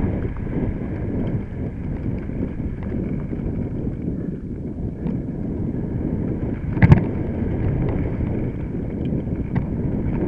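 Mountain bike riding over a rough dirt trail: wind buffeting the microphone and the steady noise of tyres and bike over uneven ground, with small knocks and one sharp loud knock about seven seconds in.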